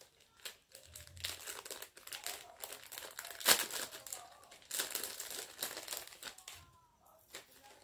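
Packaging crinkling and rustling in bursts as a piece of jewellery is unwrapped by hand, with one sharp snap about three and a half seconds in.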